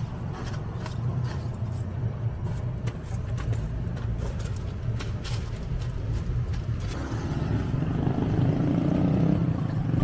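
Road traffic: a motor vehicle's engine running nearby, growing louder in the last few seconds, with a few light clicks over it.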